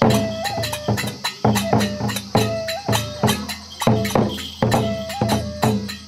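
Kagura festival music: a large barrel drum beaten with sticks in a driving rhythm, about two strikes a second, with metallic hand-cymbal clashes and a flute repeating a short held phrase that steps up and back.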